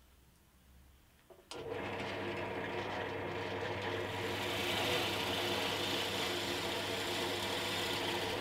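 Silverline 350W pillar drill switched on with a click about a second and a half in, its electric motor then running steadily with a hum and hiss.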